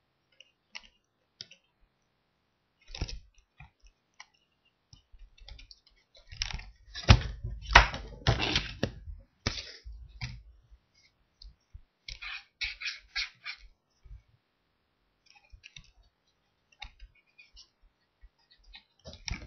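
Pen strokes scratching and tapping on a card against a desk, in irregular bursts. A louder stretch of knocks and rubbing comes about six to ten seconds in, and a quick run of scribbling strokes, about four or five a second, a little after twelve seconds.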